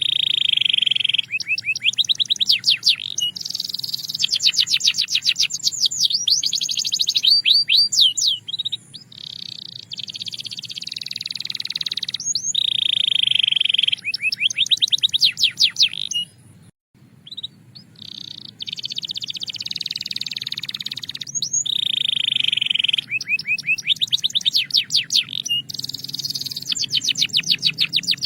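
Canary singing: a continuous string of fast trills and rolls, each phrase of rapidly repeated high notes lasting a second or two, with a brief pause about two thirds of the way through.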